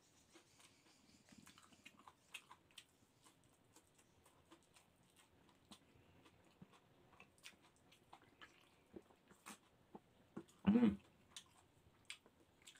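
Faint close-up eating sounds of a person eating grouper head and rice by hand: scattered small lip smacks and chewing clicks. About ten and a half seconds in comes one short, louder hummed "mm" from the eater.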